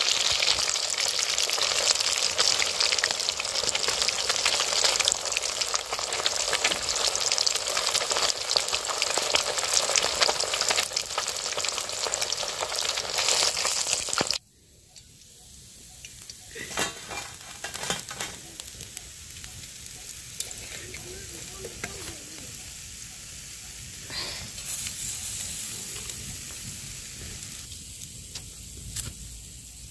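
Fish pieces deep-frying in hot mustard oil in a steel wok: a loud, steady sizzle and crackle. It cuts off suddenly about halfway through, and what follows is much quieter, with a few light clicks.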